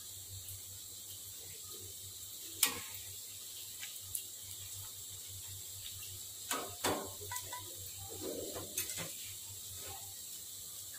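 A metal spatula clinking and scraping against a wok as taro strips are stirred in oil: a few sharp clinks, the loudest about two and a half seconds in, and a cluster of knocks and scrapes between about six and nine seconds, over a faint steady hiss.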